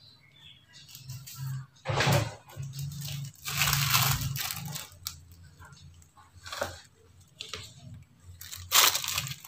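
Dishes and plates being handled on a table: a few separate knocks and clatters, with a longer scraping noise of about a second around the middle.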